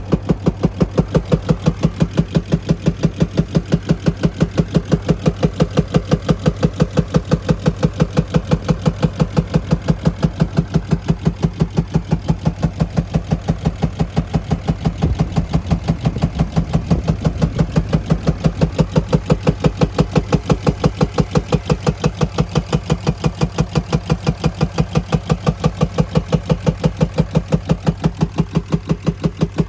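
2020 Ram 2500's 6.7-litre Cummins inline-six turbo diesel running with a sharp, regular knock about four times a second, the low rumble swelling briefly about halfway through. It is the knock the owner is trying to diagnose, which comes with misfires and black exhaust smoke when the engine is revved.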